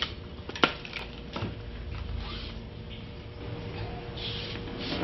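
Microphone handling noise: rustling, with a sharp click about two-thirds of a second in and a softer one near one and a half seconds, over a faint steady hum.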